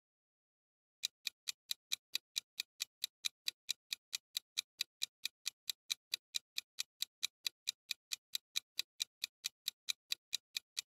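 Ticking-clock sound effect for a countdown timer: short, even ticks, about four a second, starting about a second in.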